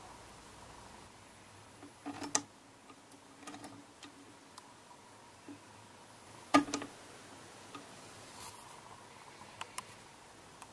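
A few scattered light clicks and knocks from handling a sewing machine and cloth, with the sharpest knock about six and a half seconds in, over faint room noise.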